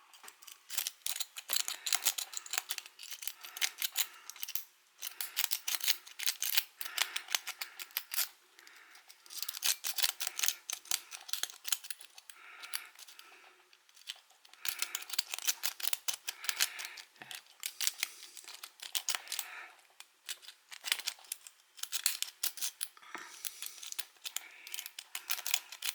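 A metal rake pick being worked rapidly in a brass Tessi padlock, scraping and clicking over the lock's insides in bursts of a few seconds with short pauses between.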